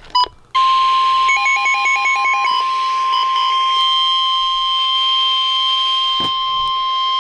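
NOAA Weather Radio's 1050 Hz warning alarm tone: one steady high tone starting about half a second in and holding, the signal that a warning broadcast is about to follow. A quick run of short beeps alternating between two pitches sounds over it near the start.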